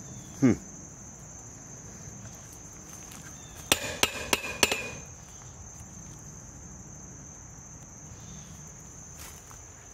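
Steady high-pitched chorus of insects. A short falling sound comes about half a second in, and a quick run of four or five sharp knocks comes about four seconds in.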